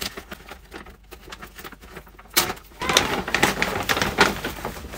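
Paper gift bag and the wrapping inside rustling and crinkling as hands rummage through it, scattered at first, then louder and denser from about halfway through.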